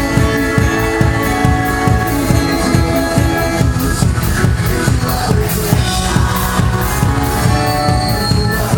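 A live band playing an upbeat worship song: a drum kit drives a steady, fast beat with kick and cymbals under sustained keyboard and bass.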